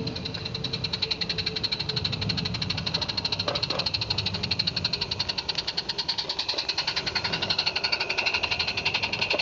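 Roundhouse Engineering Jack 0-4-0 live-steam garden railway locomotive chuffing rapidly and evenly as it hauls a train of wagons past. A single brief knock a little over three seconds in.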